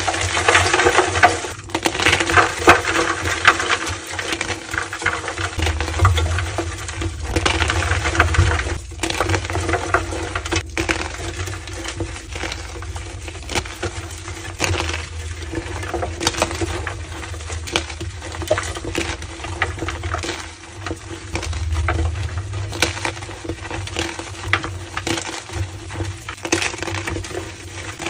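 Homemade gym chalk slabs being crushed: continuous dense crunching and crumbling with squeaky creaks, loudest in the first few seconds.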